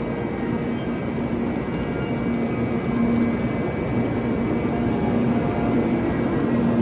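Tokaido Shinkansen train at the platform: a steady rumble and whir of the train with a faint hum, slowly growing louder.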